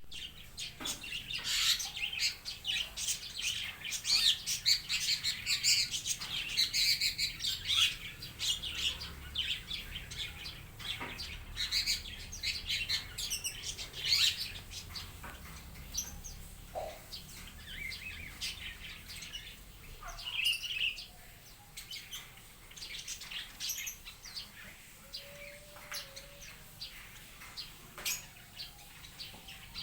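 A mixed flock of small cage birds (starlings, parakeets, bulbuls and white-eyes) chirping and twittering over one another in an aviary. There are scattered sharp clicks among the calls. The chatter is busiest in the first half and thins out after about fifteen seconds.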